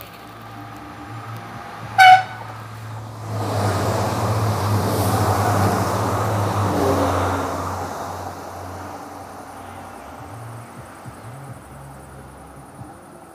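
Regional TER passenger train giving one short horn toot, then passing close below with a rush of wheel and running noise that swells and fades as it moves away.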